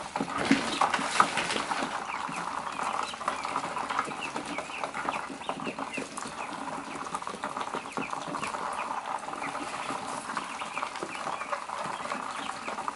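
A brood of week-old Khaki Campbell ducklings peeping continuously, many short overlapping chirps, with scattered clicks and rustles as they peck at a plastic feeder tray in wood shavings.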